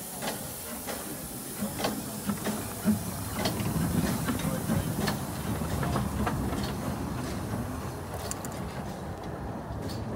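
A Bagnall 0-4-2T narrow-gauge steam tank locomotive moving slowly past, with a steady hiss of steam over irregular clanks and clicks from its wheels and motion. A low rumble grows as it goes by, and the hiss dies away near the end as the engine draws off.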